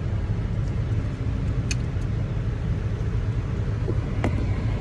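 Steady low rumble of a car heard from inside the cabin, with a couple of faint short clicks.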